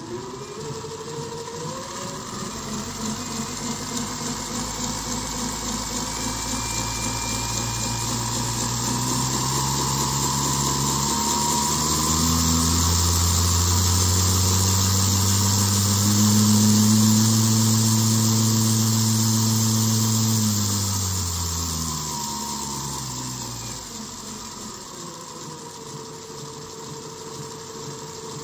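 REV NEO brushless motor driving a two-stage planetary gearbox, running with a whine and gear hum. It winds up in speed and loudness over the first half, peaks around seventeen seconds in, then slows back down and settles to a lower steady whine.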